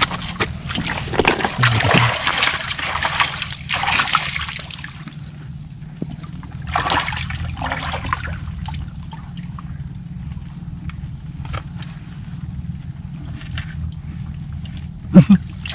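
Shallow water splashing and sloshing in irregular bursts, loudest in the first few seconds and again about seven seconds in.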